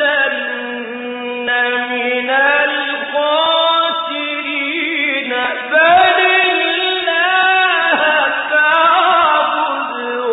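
A man's solo voice reciting the Quran in the melodic mujawwad style, drawing out long ornamented notes that slide up and down, with short breaths about two and six seconds in.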